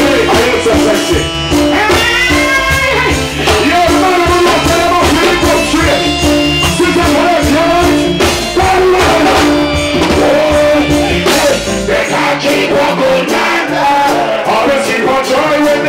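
Live reggae band playing, with electric guitar, bass, drums and keyboard, while a male vocalist sings into a handheld microphone. The deep bass drops out about twelve seconds in.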